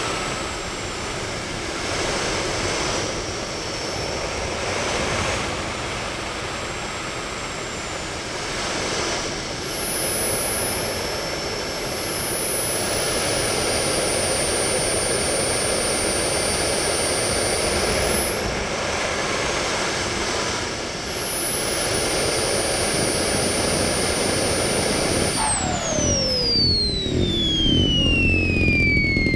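Radio-controlled model jet's engine running with a high whine that rises and falls with the throttle as it taxis. About 25 seconds in it is shut down and the whine slides steadily down in pitch as the engine spools down.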